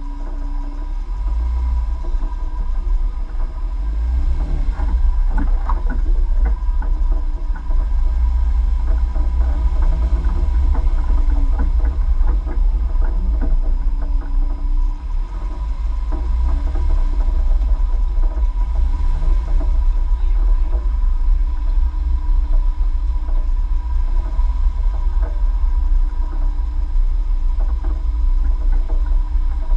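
Low, steady rumble from a Jeep Wrangler driving slowly away along a dirt off-road track, with a thin steady tone running through it.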